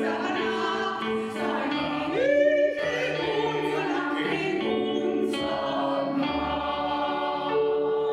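Choir singing in sustained chords, with a high voice swelling up to a held note about two seconds in and the choir holding a chord near the end.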